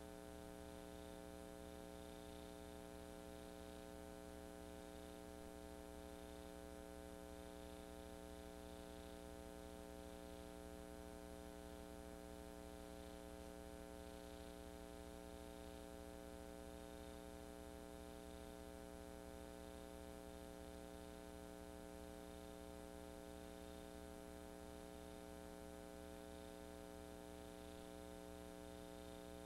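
Faint steady electrical hum with a stack of evenly spaced overtones and light hiss, unchanging throughout; no sound of the parade itself is heard.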